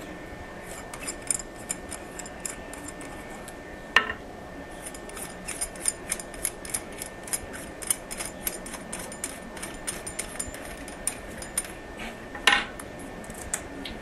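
Light metallic clicks and clinks as brass ball cock fill-valve parts are handled and fitted together, with two louder knocks, about four seconds in and near the end.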